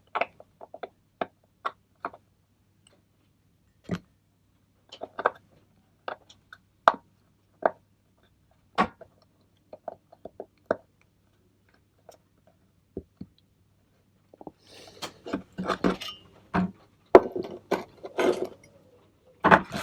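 Scattered sharp metallic clicks and taps of two screwdrivers worked against a small exhaust spring clamp to prise it open, growing into a denser run of clicks and knocks near the end.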